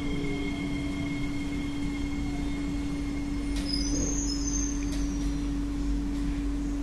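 C151B MRT train heard from inside the car while slowing into a station: a steady hum under the traction motors' high whine, which fades out. Short high brake squeals come about halfway through.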